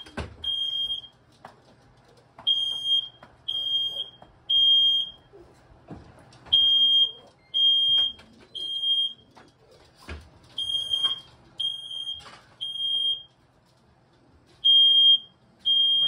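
Ceiling-mounted smoke detector sounding its alarm: loud, high-pitched beeps in groups of three, each group followed by a pause of about a second and a half.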